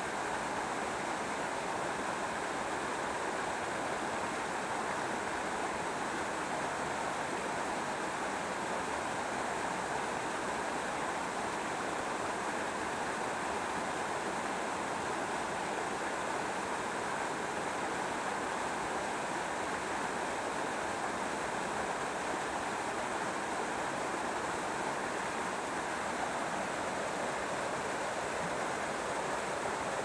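Small waterfall pouring steadily onto rock and onto a person sitting in its flow, a constant, even rushing of water.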